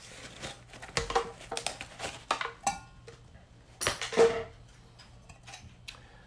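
Metal canteen cup being handled and set down: a string of clinks and knocks, one followed by a brief ringing tone about two and a half seconds in and the loudest knock about four seconds in, amid rustling of the canteen's fabric pouch.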